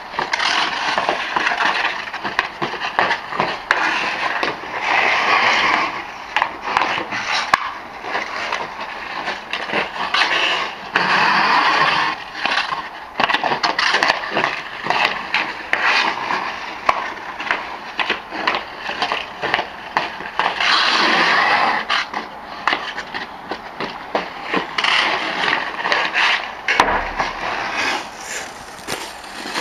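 Hockey skate blades scraping and carving across outdoor ice in repeated strokes, with the clack of a hockey stick on a puck, and one hard knock near the end.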